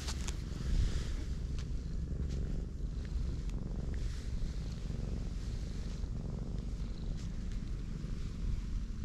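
Black cat purring steadily while being stroked, a low continuous rumble.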